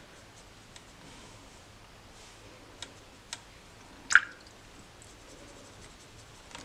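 Faint wet dabbing and small taps of a watercolour brush mixing paint in a plastic palette well, a few soft clicks, with one sharper tap about four seconds in.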